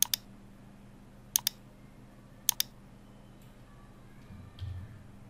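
Computer mouse clicks: three sharp clicks in the first three seconds, each heard as a quick double tick, followed by a few faint keyboard keystrokes near the end.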